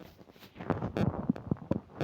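Human stomach gurgling and rumbling from upset digestion. A quiet start gives way, about half a second in, to a run of irregular bubbly gurgles and pops.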